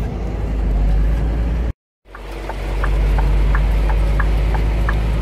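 Low, steady engine and road rumble heard inside a moving vehicle's cab on a wet road. The sound drops out completely for a moment about two seconds in, then returns with a regular light ticking about three times a second.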